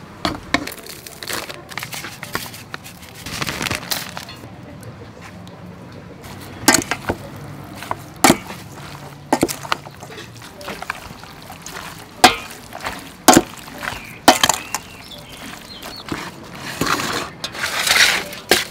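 A wooden spoon mixing sliced raw beef with its seasonings in a metal bowl, with irregular sharp knocks of the spoon against the bowl.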